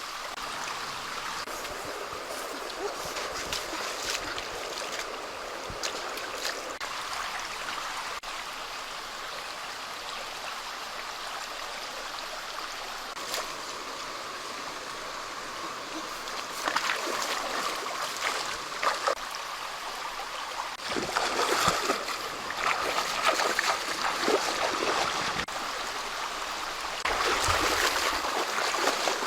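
Steady running water, like a small stream, with louder bouts of irregular clicks and knocks in the second half.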